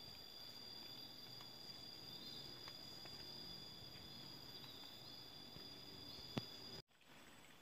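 Insects droning steadily in two even high-pitched tones, with a few short chirps over them. A single sharp click comes just before the end, and then the sound cuts off.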